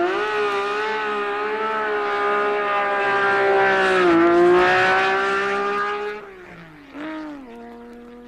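Prince R380 race car's straight-six racing engine running at high revs with a steady, high note, the pitch dipping briefly about four seconds in and then climbing back. About six seconds in the note falls away and a quieter, lower steady engine note is left.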